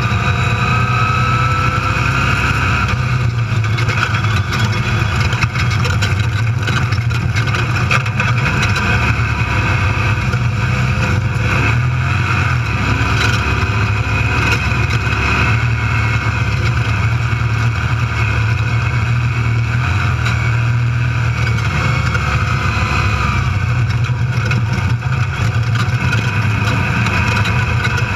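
Desert race vehicle's engine running hard at steady speed, heard from inside the cab, with many short knocks and rattles as it runs over rough dirt. A faint rising whine shows in the first couple of seconds.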